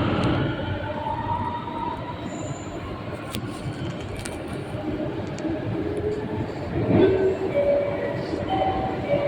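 Singapore MRT train heard from inside the carriage as it pulls away and gets under way: a steady rumble and wheel-on-rail noise, with a few faint motor tones that change pitch and some sharp clicks.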